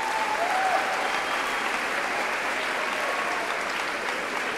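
A large audience applauding steadily, with a few faint voices calling out over the clapping.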